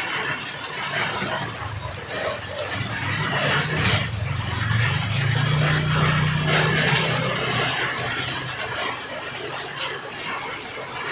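Heavy rain and overflowing water running steadily. A motor vehicle's engine hums past in the middle, for about four seconds.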